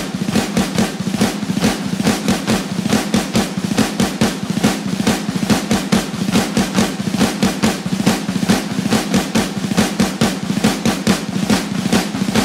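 Drum break in a heavy rock song: snare drum playing a fast, even run of strokes, about seven a second, with the bass and guitars dropped out.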